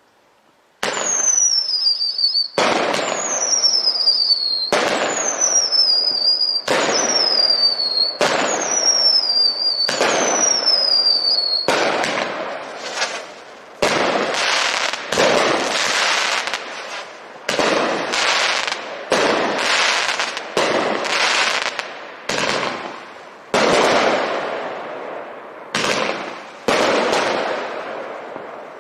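A Red Lantern Luftalarm 500-gram fireworks cake firing. The first six shots, about two seconds apart, each go up with a shrill whistle falling in pitch. After that comes a quicker run of shots without whistles, roughly one a second, each a sudden rush of noise that fades away.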